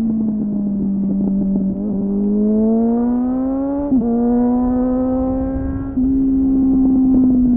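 Suzuki GSF600 Bandit inline-four motorcycle engine heard onboard through an aftermarket slip-on exhaust with a homemade dB-killer. The engine note sags, then rises under acceleration, drops sharply with a gear change about four seconds in, and then pulls steadily.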